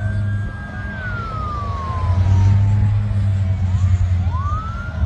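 Emergency vehicle siren wailing. It holds a high pitch, falls slowly over about two seconds, then rises again near the end, over a steady low engine drone.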